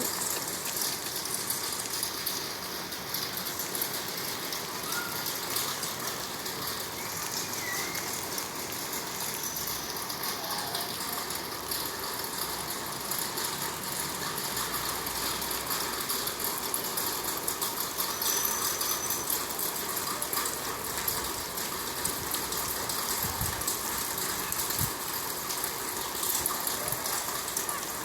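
Steady rushing noise of heavy rain and wind in a storm.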